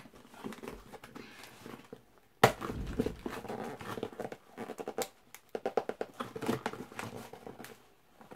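Packaging being handled and pulled at by hand, crinkling and rustling. It is quiet at first, then a busy run of quick, scratchy rustles starts about two and a half seconds in and lasts until near the end.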